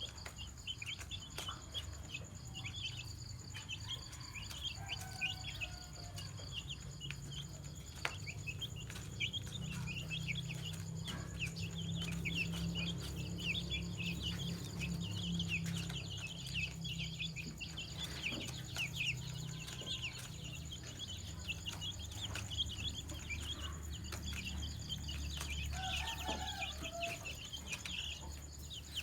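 Many domestic chicks peeping continuously, a dense chorus of short high chirps, with a lower call near the end and a low steady hum underneath.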